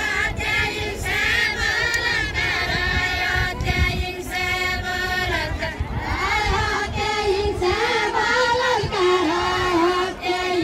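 A group of women singing a Deuda, the Far-Western Nepali folk song, together in a line, in a competitive exchange of verses.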